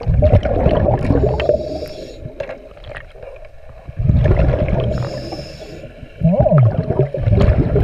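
Scuba diver's regulator heard underwater: three long bursts of exhaled bubbles rumbling past the microphone, a few seconds apart, with a brief whistling tone in the last one.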